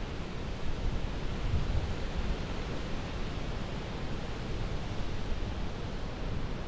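Ocean surf churning and breaking in a narrow rock chasm, a steady wash of noise, with wind buffeting the microphone.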